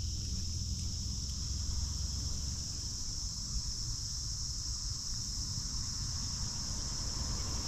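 Steady, high-pitched drone of an insect chorus from the creek-side woods, unbroken throughout, over a low rumble.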